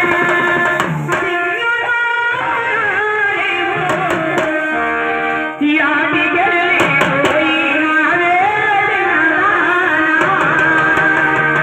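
Amplified Telugu folk song for chekka bhajana: a man sings into a microphone over drum and melodic instrument accompaniment, with a brief held instrumental chord a little before the middle.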